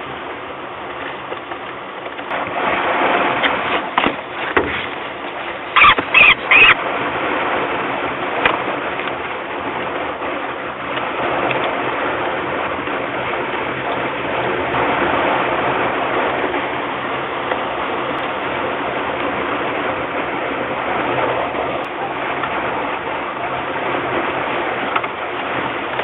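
Peregrine falcons squealing and calling at the nest box, the sounds that go with a prey delivery to the chicks, over a steady rushing noise. Three loud, sharp calls come in quick succession about six seconds in.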